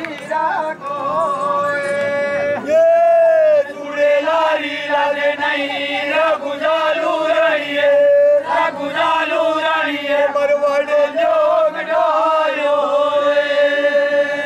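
Voices chanting a Gavri folk-ritual song in unison, drawing out long held notes with a few bending phrases.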